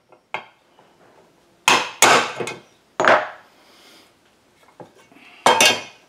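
Hammer driving a punch to knock the seal out of a Husqvarna chainsaw crankcase half: several sharp metal strikes, each with a short ring, the loudest about two, three and five and a half seconds in.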